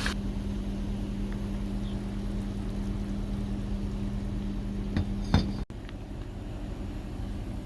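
Two light clinks of tableware about five seconds in, over a steady low hum.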